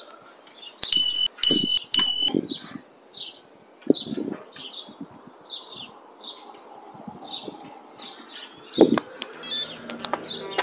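Birds chirping and calling steadily in the early-morning dark, many short chirps throughout. About a second in come three short, even electronic beeps, and a few dull knocks are heard, the loudest near the end.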